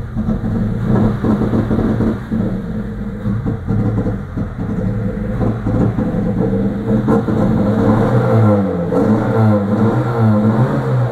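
VAZ-2101's carburetted inline-four engine running roughly and unevenly, with irregular pops and stumbles in the first half and the revs swinging up and down in the second half. It is misfiring, running on three or two cylinders and sneezing back.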